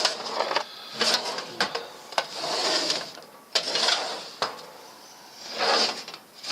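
Tool-cabinet drawers being slid open and pushed shut several times, each slide a short rushing scrape, with sharp knocks as drawers stop or close.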